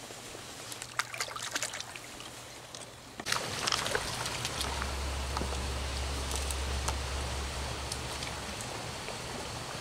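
Water trickling and splashing around a held trout, then, about three seconds in, the louder steady rush of a shallow stream's current, with a hooked trout splashing at the surface as it is played on a fly rod.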